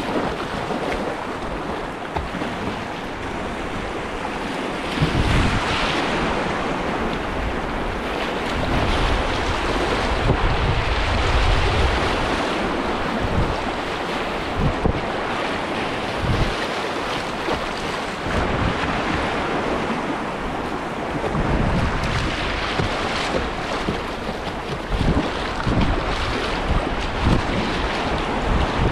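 River whitewater rushing steadily, with wind buffeting the microphone in low, uneven gusts from about five seconds in.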